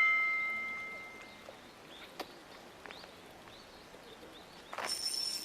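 A last piano note dies away over the first second. It leaves faint outdoor background with a click and a few short, high bird chirps. Near the end, a louder hiss with a steady high whine starts abruptly.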